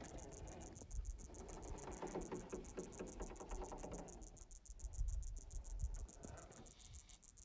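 Crickets chirping in a fast, steady pulse. Under it runs the whir of a 1/10-scale RC crawler's small electric motor and gears as it climbs over rock. Low wind bumps on the microphone come about a second in and again around five seconds in.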